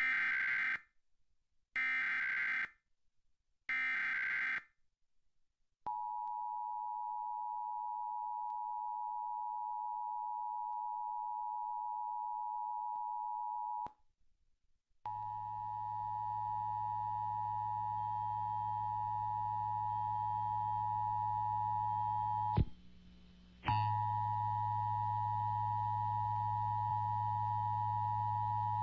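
Emergency Alert System broadcast test: three short raspy SAME header data bursts, then the EAS two-tone attention signal (853 and 960 Hz) held steady for about eight seconds. After a second of silence the attention tone sounds again with a low hum under it, dropping out briefly for about a second past the middle.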